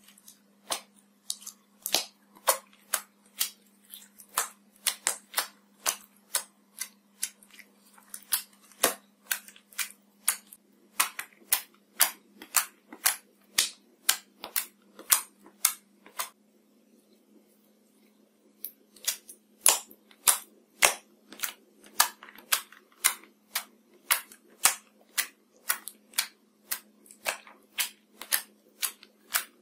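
Clear slime being poked and squeezed by fingertips, giving a quick series of sharp wet clicks and pops, about three a second, as air pockets in the slime burst. The clicks stop for about two seconds past the middle, then start again.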